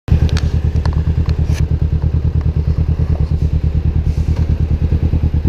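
Vehicle engine running steadily at road speed, a fast, even low pulsing. A few sharp clicks sound in the first second and a half.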